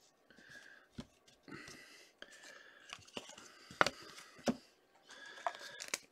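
Hockey trading cards being handled: soft rustling and sliding of cards against one another and the hands, broken by a few light clicks and taps, the sharpest about four seconds in.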